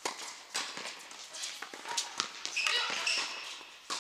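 Tennis ball impacts on a court: several sharp pops a fraction of a second to a second apart, with a brief high-pitched sound about two and a half seconds in.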